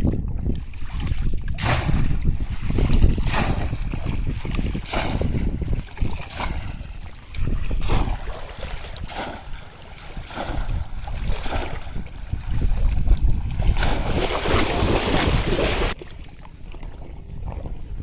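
Repeated splashing in shallow water, roughly once a second, with a longer burst of churning splashes near the end, over heavy wind rumble on the microphone.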